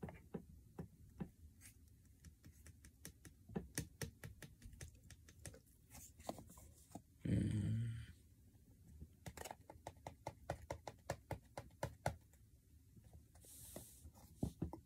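Light, irregular tapping and clicking as baking soda is shaken out of a cardboard box into a plastic spray bottle and the bottle is handled. One brief, louder sound comes about seven seconds in.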